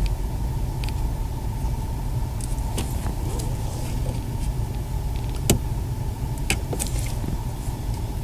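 Scattered sharp clicks and taps of plastic dash trim and connectors being handled and fitted, over a steady low hum; the loudest click comes about halfway through.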